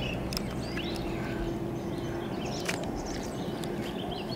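Outdoor ambience with birds chirping, and a couple of light clicks, about half a second in and again a little past halfway.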